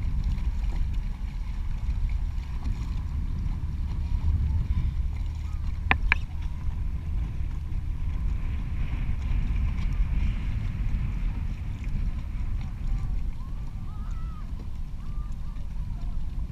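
Wind buffeting the microphone on an open small boat on the water, a steady rough low rumble, with a couple of sharp knocks about six seconds in.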